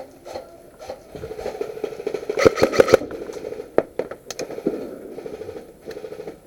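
Airsoft guns firing rapid full-auto bursts, with a dense cluster of sharp cracks about two and a half seconds in and a couple of single snaps after it.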